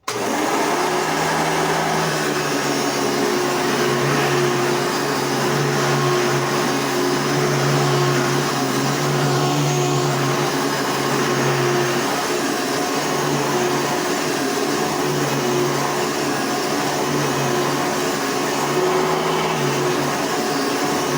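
Hoover Elite vacuum cleaner running steadily, its motor giving a low hum under a wide rush of airflow noise; the sound begins abruptly at the start.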